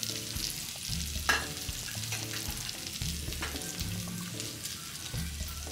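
Samgyeopsal pork belly sizzling and crackling on a tabletop grill plate, with one sharp click about a second in.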